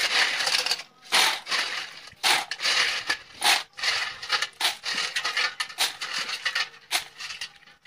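River snail shells clattering against each other and a stainless steel bowl as they are scrubbed by hand in water, in quick, irregular bursts of rattling.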